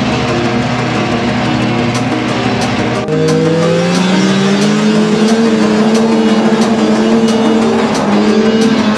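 Snowmobile engine running at speed, its note climbing in pitch about three seconds in and then holding steady.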